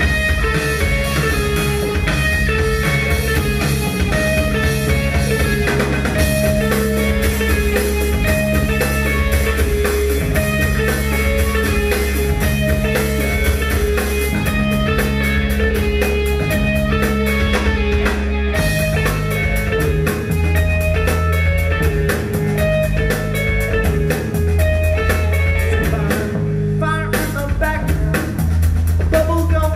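Rock band playing an instrumental passage: a repeating guitar figure over bass and drum kit with steady cymbal ticks. About eighteen seconds in the bass line changes and the drumming grows busier.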